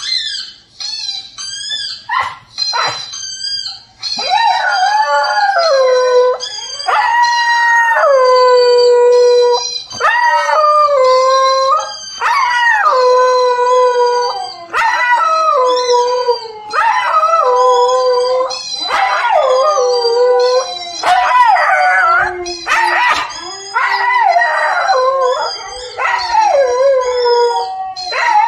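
Four-month-old Siberian husky puppy howling: a string of long howls, each a second or two, bending up and down in pitch. About four seconds in, a few short high whines give way to the howls.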